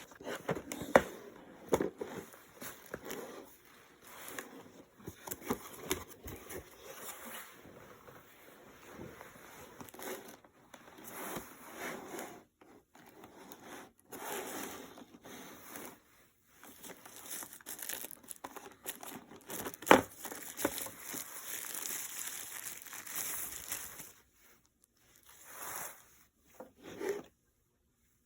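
Packaging of a hair clipper set being handled and opened: irregular crinkling, rustling and tearing, with sharp clicks and knocks now and then. The loudest knocks come about a second in and about 20 s in, and it stops about 27 s in.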